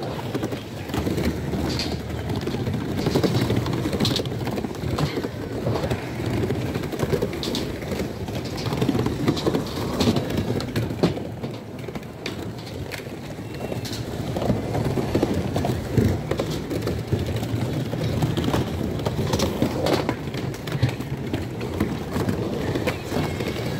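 Urethane skateboard wheels rolling and carving on a wooden mini-ramp, a steady rumble broken by occasional knocks of the board, with a crowd chattering in the background.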